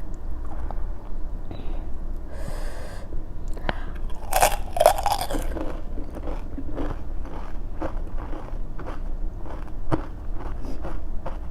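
Close-up eating sounds of crisp panipuri shells filled with potato: one loud crackly crunch about four seconds in as a puri is bitten, then a run of steady crunchy chewing.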